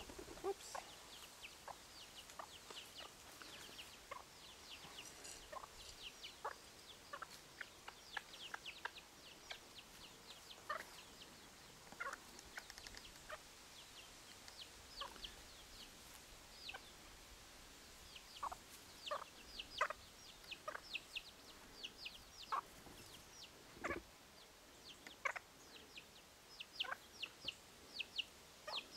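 Deutsches Buschhuhn bantam chicks peeping in a continual series of short, high, falling notes, mixed with occasional lower, soft clucks.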